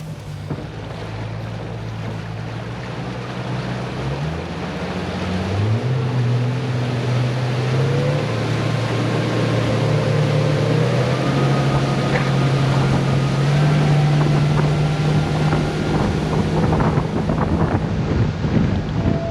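Fishing boat's engine throttling up to run to a new spot, its pitch climbing in two steps about four and six seconds in, then running steadily at speed. Wind and water rush past throughout.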